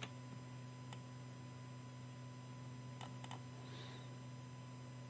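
Low steady electrical hum with a few faint, soft clicks from working a computer's keyboard and mouse, two of them close together a little after three seconds in.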